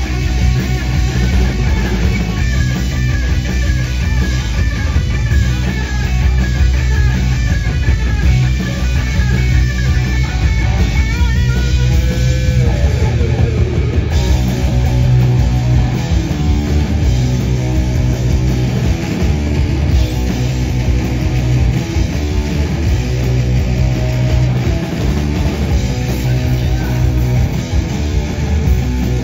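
A punk rock band playing loud and live: electric guitar over bass guitar and drums, without a break.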